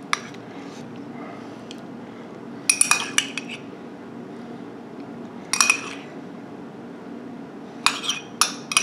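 Metal spoon clinking and scraping on ceramic dishware as avocado slices are scooped from a small ramekin. The clinks come in short runs, about three seconds in, past five seconds, and again near the end, over a steady low hum.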